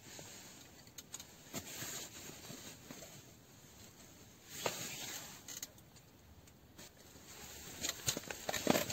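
Faint rustling and small clicks as winter ice-fishing gear is handled over the hole, with a cluster of sharper clicks near the end.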